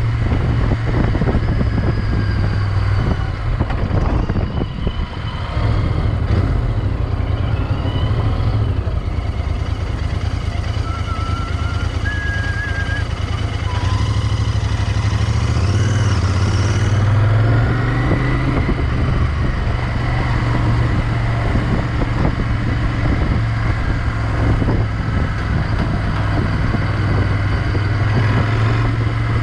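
Royal Enfield Interceptor 650's 648 cc parallel-twin engine running steadily as the motorcycle is ridden through city traffic, easing off briefly about five seconds in.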